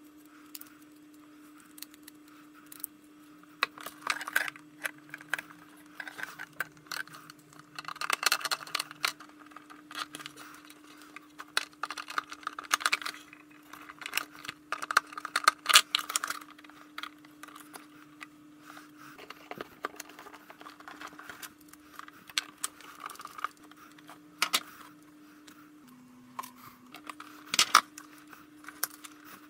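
Irregular small clicks, taps and scrapes of a screwdriver and wires being worked into a relay module's screw terminals, over a faint steady hum.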